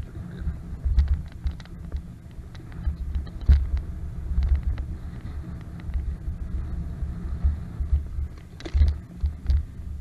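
Wind buffeting the microphone while riding, a low rumble that comes in gusts, with scattered light clicks and rattles.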